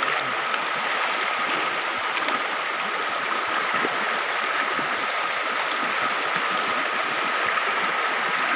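Shallow, stony river flowing and rippling over rocks: a steady, even rush of water. A thin steady high tone sits faintly within it.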